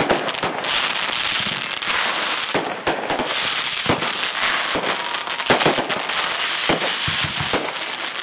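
Aerial fireworks going off in quick succession: sharp bangs every second or so over a continuous hiss of crackling stars.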